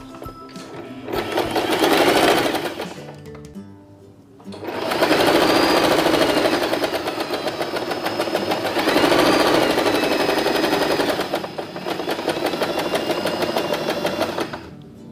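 Electric sewing machine running a straight (regular) stitch seam through stretchy jersey fabric: a short run of about two seconds, a brief stop, then a longer run of about ten seconds that stops near the end.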